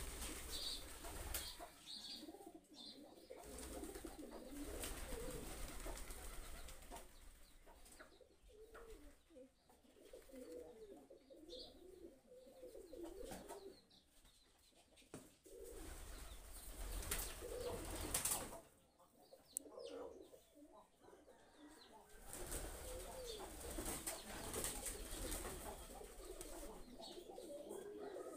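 Pigeons cooing over and over, faint, with stretches of rumbling, rustling handling noise in between.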